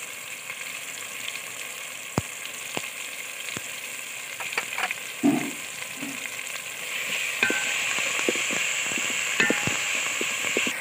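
Masala of onion, tomato and ginger-garlic frying in ghee in a large metal pot over a high flame, a steady sizzle. From about seven seconds in the sizzle gets louder and a ladle clicks and scrapes against the pot as the masala is stirred.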